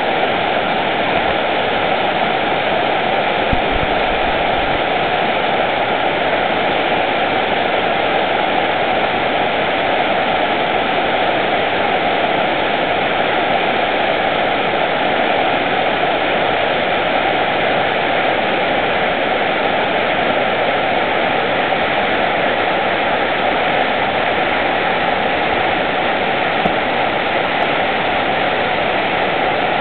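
Whitewater rapids of a rocky mountain river rushing steadily over and between boulders.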